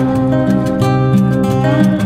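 Instrumental background music led by guitar, with sustained notes that bend in pitch.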